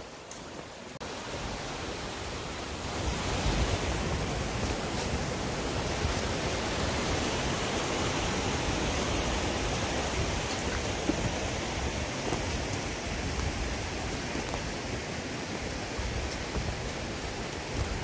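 Steady rush of a mountain stream, an even hiss of flowing water that grows louder about three seconds in and then holds steady.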